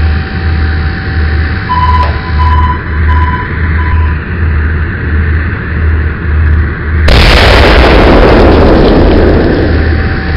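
Battleship sound-effect track for an RC model warship: a low pulsing engine rumble, four short high beeps about two seconds in, then about seven seconds in a sudden loud blast like a big gun firing, fading away over about three seconds before the rumble goes on.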